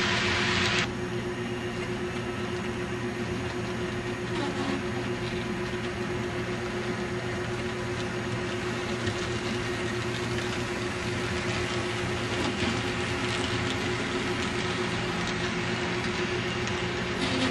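A model train runs past, the wheels rolling on the track over a steady hum. A loud hiss cuts off just under a second in.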